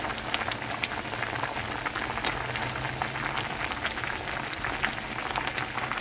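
A pot of doenjang (soybean paste) stew at a rolling boil: a steady, irregular patter of many small bubbles popping at the surface.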